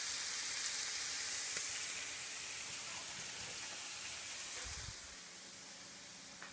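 Scallops searing in a hot frying pan: a steady hissing sizzle that grows fainter after about two seconds and drops lower again near the end.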